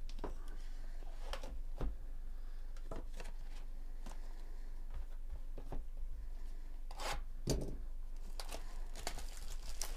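Cardboard trading-card boxes handled with gloved hands: scattered rustles, scrapes and light taps, a few louder ones about seven and nine seconds in, over a steady low hum.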